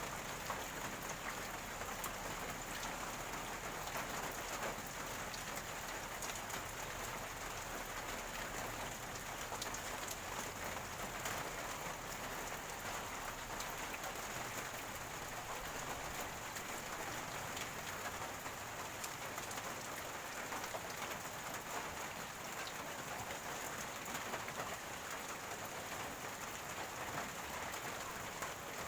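Steady rain falling, with a constant patter of fine drop ticks, and rainwater running and gurgling.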